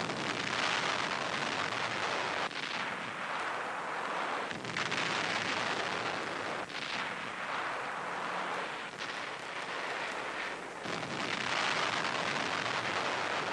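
Wartime newsreel soundtrack of bombs exploding and guns firing: a continuous noisy din of blasts that swells and eases every two seconds or so.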